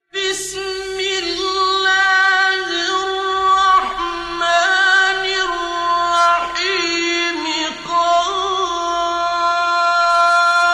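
A single reciter chanting the Quran unaccompanied, in melodic tajweed style. The voice holds long, ornamented notes, with runs and glides between them.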